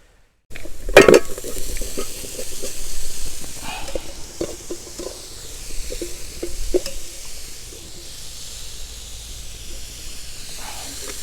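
Cooked chopped chicken going into a hot pan of sautéed onions and spice powders, sizzling, with a loud knock about a second in. A spoon then stirs, scraping and knocking against the pan over a steady frying hiss.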